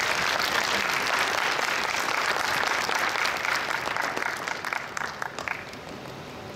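Audience applauding, a dense patter of many hands that thins to a few last separate claps about five seconds in and then stops.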